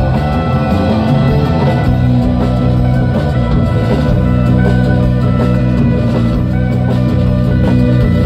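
Amplified live rock band playing: electric guitars and drums over a steady low drone, heard loud and full from the audience.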